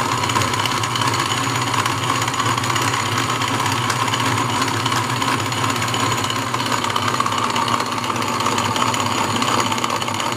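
1920s Wade bench lathe running belt-driven from its electric motor, the carriage tool cutting a turning piece of maple: a steady mechanical whirring that holds even throughout.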